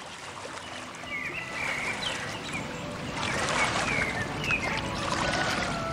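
Outdoor ambience of washing water with birds chirping over it, fading up and growing louder.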